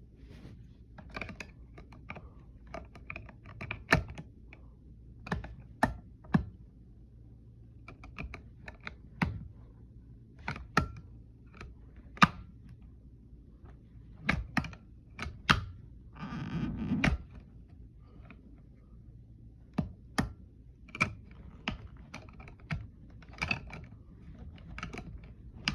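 Irregular plastic clicks and taps of an alarm clock's buttons and slide switches being worked, a few of them sharper and louder, with a short scraping rustle about sixteen seconds in.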